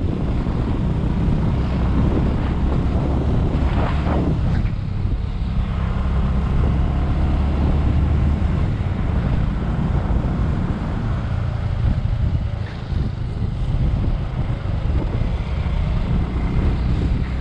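Bajaj Avenger 220 motorcycle running steadily on the road, with heavy wind buffeting the microphone. A brief swell rises and falls about four seconds in.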